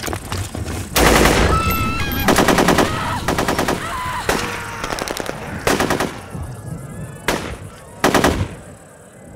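Automatic gunfire: rapid volleys about a second in and again just after two seconds, then scattered single shots that grow fainter toward the end.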